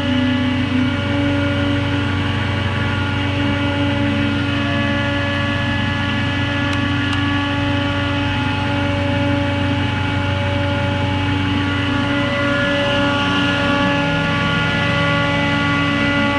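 SCMI Sintex multi-planer (four-sided S4S planer) running, its motors spinning at speed with a loud, steady hum of several tones. A lower tone joins about fourteen seconds in.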